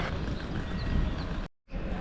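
Steady background noise with a low rumble, broken by a sudden fraction-of-a-second dropout to silence about one and a half seconds in.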